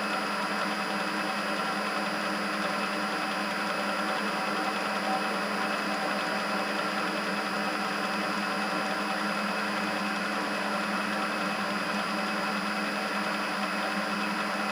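Clausing 8520 milling machine running steadily with its spindle turning, a constant motor and belt-drive hum with a whine of several fixed tones, before the cutter touches the work.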